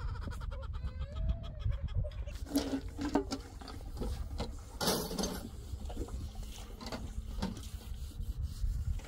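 Farmyard animals calling: hens clucking in the first couple of seconds, then goats bleating twice, over a steady low rumble.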